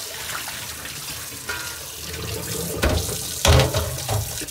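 Kitchen tap running into a stainless steel sink, a steady rush of water. Two knocks about three seconds in, the second louder.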